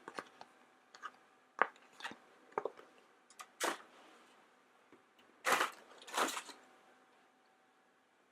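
Hands handling a small plastic toy figure and its blind-bag packaging and paper flyer: scattered light clicks and taps, then two louder crinkling rustles about five and a half and six seconds in.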